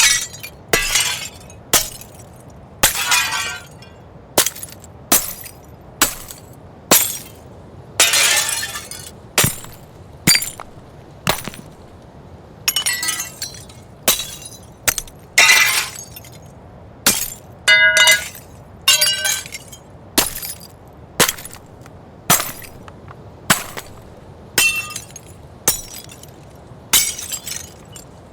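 Window panes shattering one after another, about one break a second: each a sharp crash of glass, some followed by a longer tinkle of falling shards. A low steady background ambience runs underneath.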